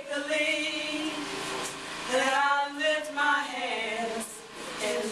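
Worship song with singing voices holding long notes that slide between pitches.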